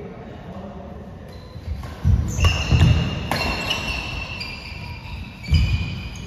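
Doubles badminton rally in a hall: heavy footfalls thudding on the court about two seconds in and again near the end, a sharp racket hit on the shuttlecock, and high shoe squeaks on the court surface, all echoing in the hall.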